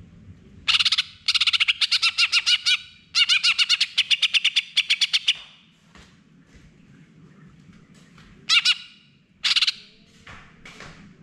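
Greater green leafbird (cucak hijau) singing in full, rapid 'nembak' volleys: three fast runs of loud, sharply repeated notes over the first five seconds, then two short bursts near the end.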